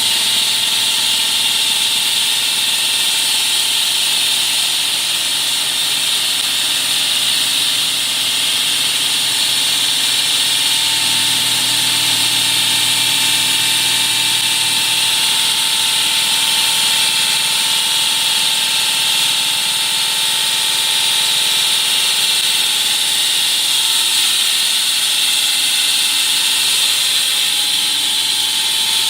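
HF 105DM high-frequency electric concrete wall saw running steadily with its diamond blade: a loud, even hiss with a steady whine.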